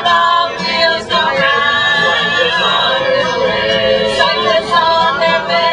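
A small group of men and women singing together in harmony, a capella.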